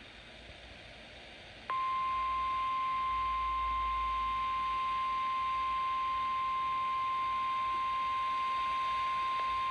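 NOAA Weather Radio 1050 Hz warning alarm tone. It is a single steady high-pitched beep that starts about two seconds in and holds without change, signalling that a warning message is about to be broadcast.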